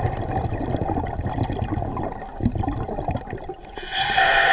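Muffled underwater rumble with small knocks as a diver shifts in the current. About four seconds in comes a loud hissing breath through the diver's breathing gear.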